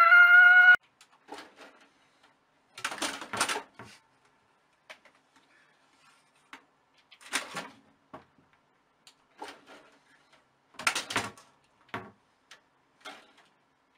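A loud rising cry that cuts off abruptly just under a second in, then scattered short scratches, knocks and rustles a second or two apart as a tabby cat claws and climbs at a computer tower and a curtain.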